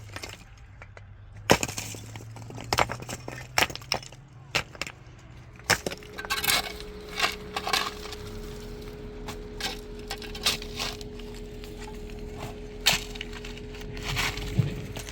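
Irregular sharp knocks and cracks of wood being handled and broken, over a steady motor hum that shifts in pitch about six seconds in.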